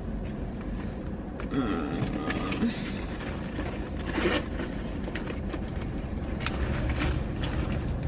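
Small rustles and clicks of someone moving about in a car's front seat, handling hair and things beside the seat, over a steady low rumble.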